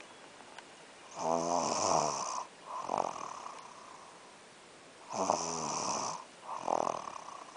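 Snoring: two breaths about four seconds apart, each a long snore followed by a shorter one, with quiet breathing between.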